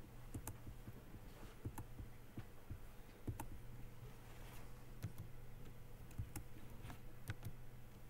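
Irregular clicks of a computer mouse and keys, a dozen or so, over a low steady hum.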